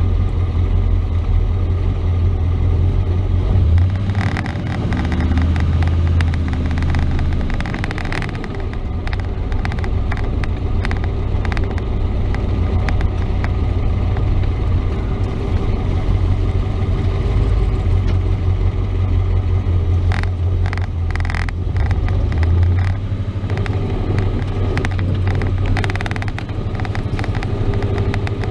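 Chevrolet S-10 pickup driving, heard from inside the cab: a steady engine and road drone that shifts in pitch a few times as the truck speeds up and slows down.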